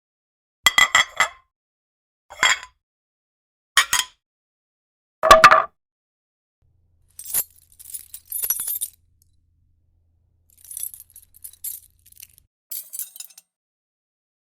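Hard objects clinking: five separate short hits about a second and a half apart, then lighter, high-pitched clinks and rattles in short clusters in the second half.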